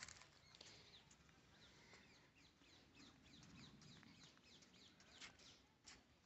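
Faint birdsong over near silence: many short, quick, falling chirps scattered throughout, with a few soft clicks.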